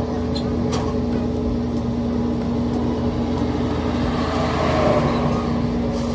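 Pickup truck engine idling steadily, with a few faint ticks in the first second.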